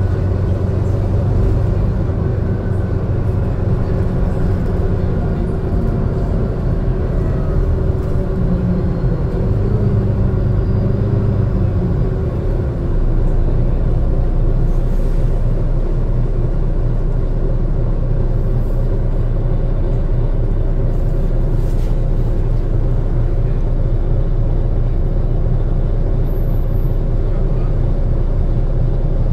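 Volvo B9TL double-decker bus heard from on board: the diesel engine runs steadily under road and cabin rumble. About halfway through, a deep low rumble gets louder.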